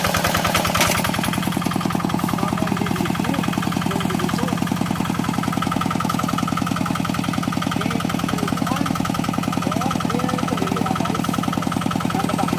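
Quick Impala hand tractor's single-cylinder diesel engine running steadily with a rapid, even chugging pulse.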